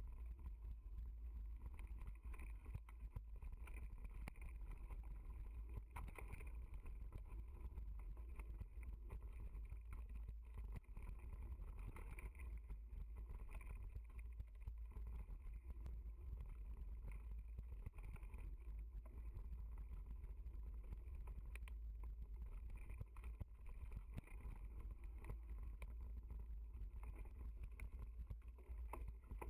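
Mountain bike rolling fast over a dirt trail: a steady low rumble with frequent small rattles and knocks as the bike goes over bumps.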